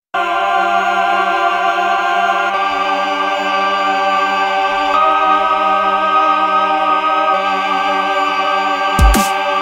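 Background music: sustained, layered chords. A drum beat comes in near the end.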